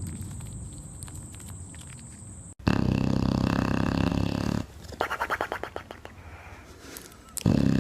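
An animal's loud, rough vocal sounds that start suddenly about two and a half seconds in after a quieter stretch of light clicks, with a rapid run of pulses in the middle and a second loud stretch near the end.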